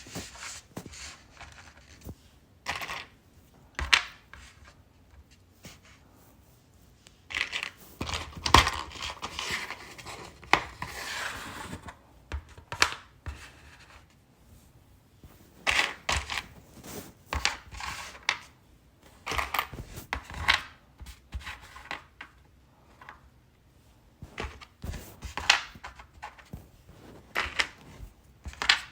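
Loose craft gems being handled: irregular clattering, clicking and scraping in short bursts, with a longer rustling, scraping stretch about eight to twelve seconds in.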